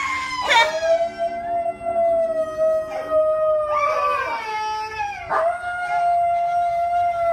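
A husky-type dog howling in two long, steady notes, the second beginning about five seconds in.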